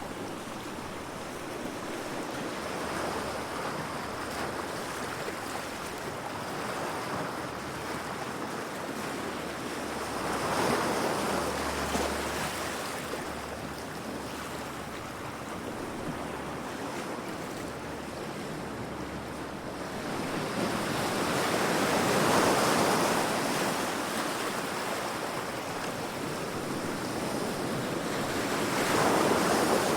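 Heavy sea waves breaking against rocks: a continuous wash of surf, with three bigger waves crashing louder, about ten seconds in, a little after twenty seconds, and near the end.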